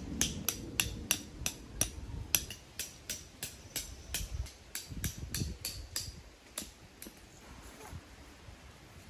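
Tent stakes being hammered into hard ground: sharp, regular knocks about three a second, with a short break about two seconds in, stopping about two-thirds of the way through.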